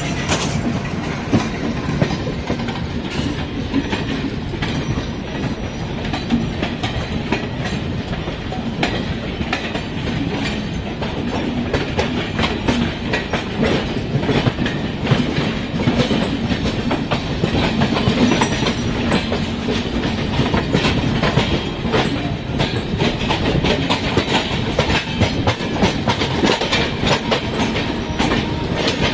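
Passenger train coaches rolling by close at speed, wheels clattering steadily over the rail joints with a continuous rumble.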